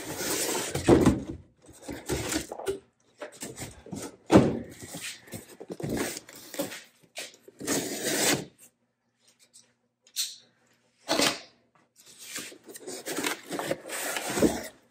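Cardboard shipping box being cut open and handled: irregular scraping and rustling of cardboard with a few knocks, broken by short pauses.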